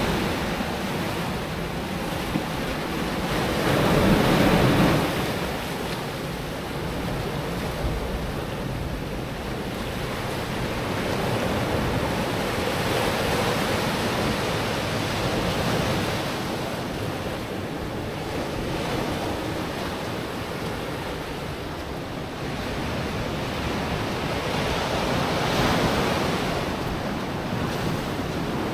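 Pacific Ocean surf breaking on the shore, a rushing wash that swells and fades every several seconds and is loudest about four seconds in. Wind is on the microphone.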